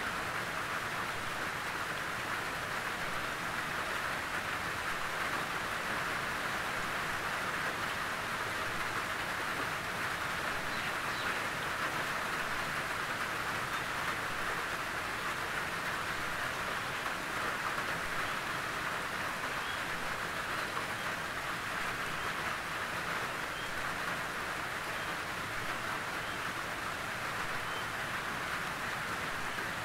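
Steady rain on a tin roof: an even patter of drops on the metal, with a few faint higher ticks from single drops.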